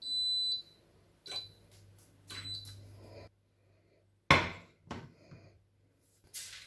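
Gorenje glass-top hob's touch controls beeping as it is switched on: one longer high beep, then a couple of shorter ones. About four seconds in, a ceramic-coated frying pan is set down on the glass top with a clunk, followed by a lighter knock.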